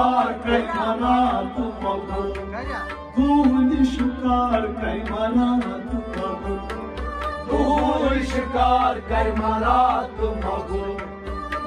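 Kashmiri Sufiyana devotional music. Male voices sing phrases of a kalam, accompanied by a harmonium and a strummed rabab, while a hand-played tumbaknari clay drum keeps a steady rhythm.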